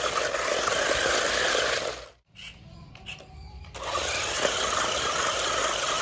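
Small electric motors of a six-wheeled toy RC stunt car running with a steady whir as its wheels spin on concrete, cutting out for about a second and a half near the middle before starting up again.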